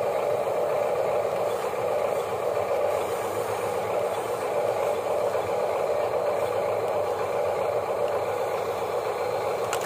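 Huina remote-control excavator's electric gear motors whirring steadily as the boom and bucket move, with a sharp click near the end.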